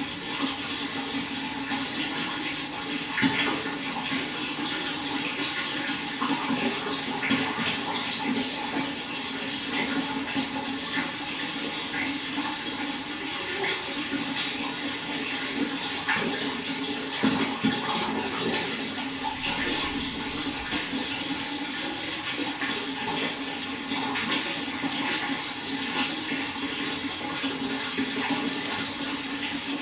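Running water: a steady, continuous splashing flow with occasional brief louder splashes.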